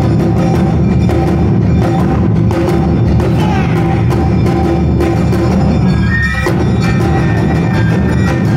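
Live Awa Odori accompaniment: percussion struck in a busy, driving rhythm over shamisen and other melody instruments, loud and steady throughout.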